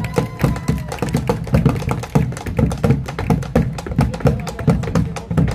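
Bombo drums beaten with sticks in a fast, even rhythm of sharp strikes over deep thumps, as in Argentine malambo percussion.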